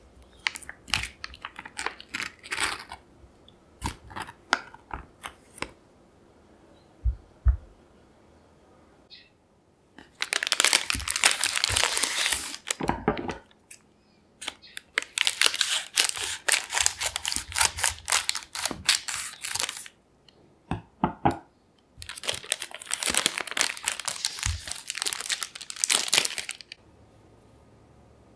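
Sharp clicks of a kitchen knife cutting through a block of butter on its foil wrapper, with a couple of low thuds. Then a stiff plastic chocolate bag and baking paper crinkle loudly in three long stretches as the bag is cut open with scissors and handled.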